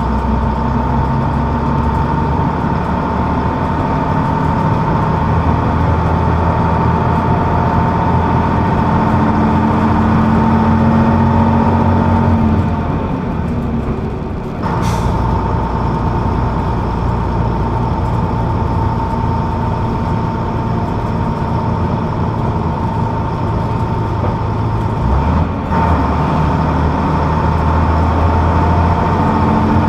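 Leyland Atlantean double-decker bus's rear diesel engine pulling along, heard from the back seat above it, with a steady whine over the engine note. The sound drops away for a couple of seconds about twelve seconds in, picks up again with a sharp click, and dips briefly once more near the end.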